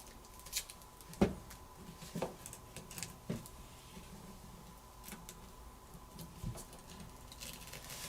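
Faint, scattered clicks and taps of a plastic card and pry tool working under a smartphone battery to free it from its adhesive, the sharpest a little over a second in, over a faint steady high tone.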